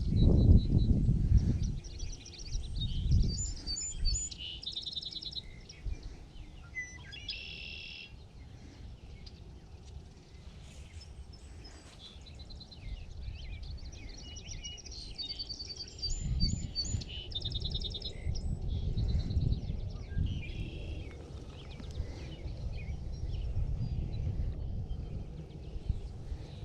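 Songbirds singing: a run of high chirps and quick repeated-note trills, one after another, over a low rumble of wind on the microphone.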